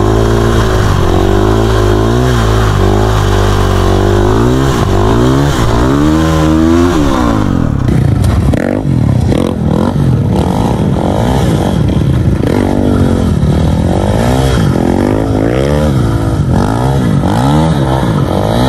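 A vehicle engine revving hard, its pitch climbing and dropping in long sweeps for the first several seconds. After an abrupt change about eight seconds in, it goes on in a quicker string of short rev rises and falls.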